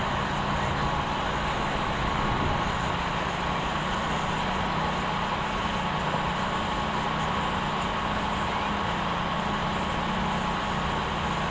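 Steady motor-vehicle engine rumble with traffic noise, a low drone under a constant higher hum, unchanging throughout.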